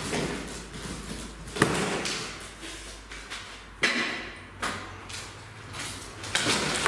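Plastic strapping bands being cut and pulled off a large cardboard shipping box: several sharp snaps and slaps against the cardboard, with rustling handling noise in between.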